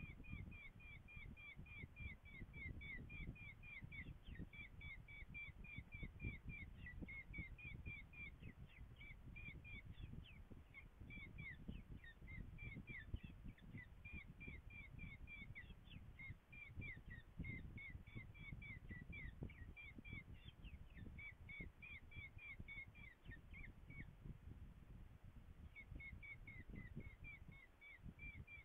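Falcons at the nest calling in a quick, steady run of short down-slurred notes, about four a second, with a short pause near the end, over a low rumbling noise.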